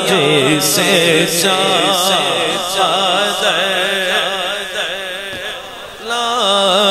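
A male naat reciter sings a Punjabi-Urdu naat refrain through a PA, drawing out a line in long, wavering melismatic notes over a steady low drone. The voice dips briefly about five seconds in, then comes back in full.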